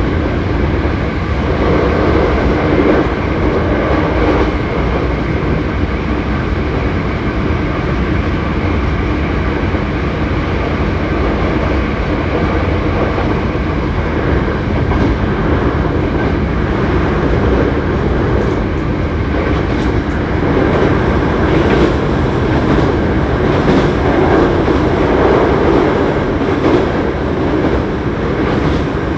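Hankyu 7300 series electric train car running at speed, heard from inside the car: a steady rumble of wheels on rail with the hum of the motors and gears, and occasional clicks from the track. The title bills this car as one with an unusual running noise.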